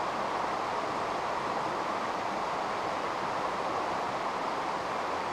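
A shallow, rocky river rushing over stones and small rapids: a steady, even rush of water.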